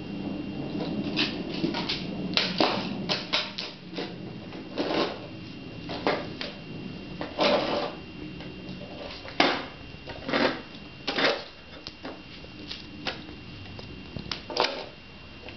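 A baby's hands pulling at and slapping interlocking foam puzzle floor tiles and the wood floor beside them: irregular slaps, knocks and rustles, with one sharp knock about halfway through.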